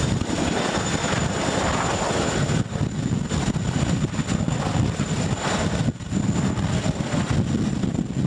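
Army CH-47 Chinook tandem-rotor helicopter lifting off and climbing into a hover: loud, steady rotor chop over turbine noise.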